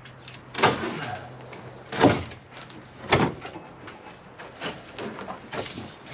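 Demolition knocks on wood: three loud, sharp blows about half a second, two and three seconds in, then a few lighter knocks, as boards are struck and pried loose.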